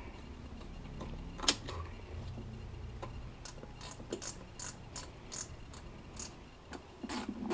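Light metallic clicks and taps from hand assembly work on a Solex moped engine's fuel hoses and brass fittings. There is one sharper click about a second and a half in, then a run of small ticks, about two or three a second.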